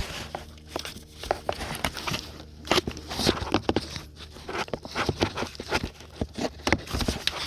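Irregular clicks and light metal clinks of hand tools and parts being worked in a car's engine bay, at the alternator's connections.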